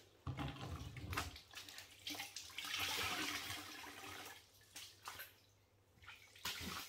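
Water pouring and splashing into a mop bucket as a soaked cloth is wrung out over it, loudest about two and a half to four seconds in, with a few short knocks from handling the bucket and wringer.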